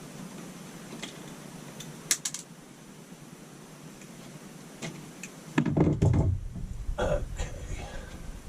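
Hands working on wiring and small electrical parts: a few sharp clicks about two seconds in, then a louder stretch of knocking and rubbing handling noise from about five and a half to seven and a half seconds in.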